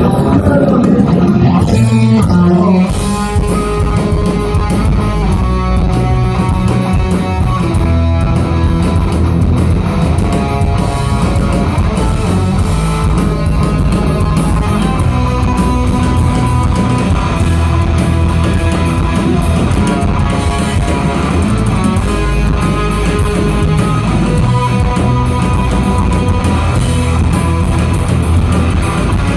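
Rock band playing live, with electric guitar prominent over bass.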